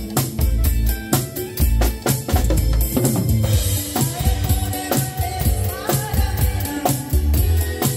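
A Pearl drum kit playing a steady pop beat, with bass drum and snare, along with accompanying music. A cymbal crash comes about three seconds in, and a melody line sounds in the second half.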